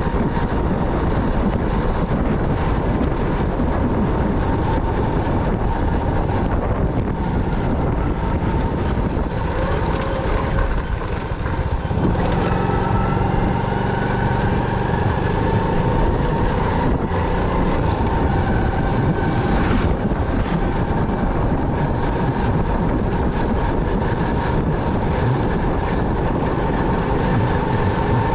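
Motorcycle on the move: steady wind and road noise with engine sound. From about twelve seconds in, a few steady tones rise slowly above it.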